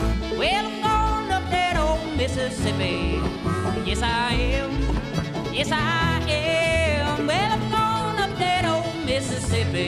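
Live bluegrass band playing an up-tempo tune: banjo, fiddle, acoustic guitar and upright bass, with a harmonica in the lead playing sliding, bending notes over a steady bass beat.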